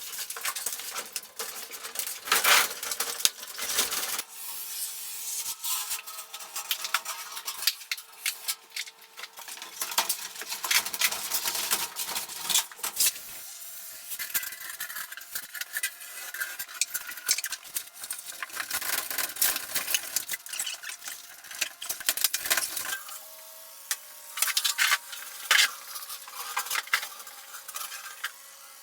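Irregular scraping, rubbing and light clinking of materials being handled by hand, a series of sharp uneven clicks and scrapes with no steady rhythm.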